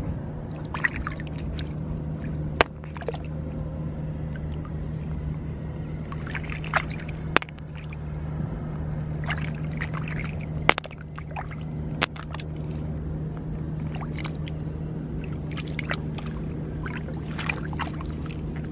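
Shallow lake water sloshing and trickling as snails are gathered by hand from among water plants, with a few sharp clicks. A steady low hum runs underneath.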